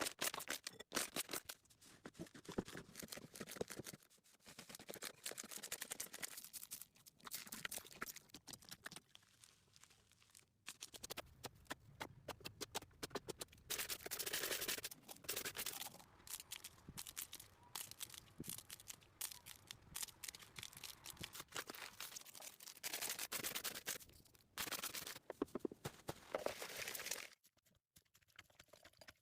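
Slime being squished and stretched, giving dense runs of crackling clicks and small pops in bursts, stopping shortly before the end.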